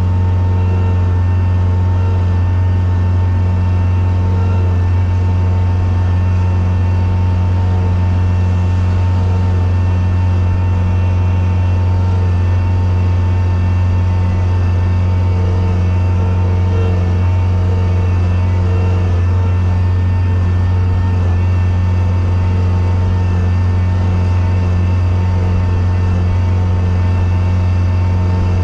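Sidewalk snow-clearing machine's engine running at a steady speed, a constant low hum heard from inside its cab.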